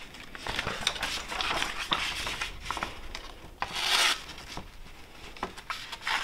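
A Civivi Chevalier pocket knife's factory edge slicing through a sheet of paper, with the paper rustling and crinkling. The cut is clean, a sign of a very sharp edge. One longer hissing slice comes about four seconds in.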